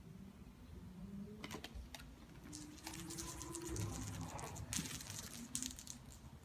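Kittens playing: quick pattering and scratchy scrabbling of paws and claws on a surface, with a few sharp clicks, busiest in the middle.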